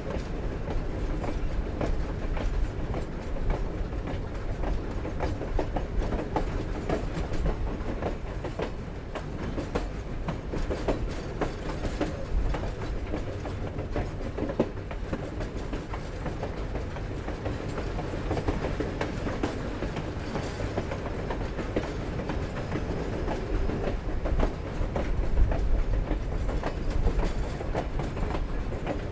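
Steam-hauled passenger train rolling along the rails: a steady low rumble with wheels clicking over rail joints and the cars clanking. One knock about 25 seconds in stands out above the rest.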